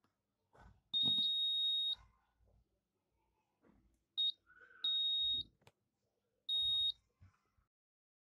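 Quiz-board buzzer beeping at one steady high pitch, four times: the first about a second long, then a very short beep and two of about half a second. Each beep marks a correct question-to-answer match as the aux-cable plugs touch the board pins, with small clicks of the plugs against the pins between the beeps.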